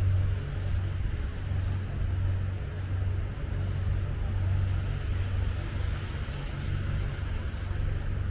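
Steady low hum of city traffic and engines on a snowy street.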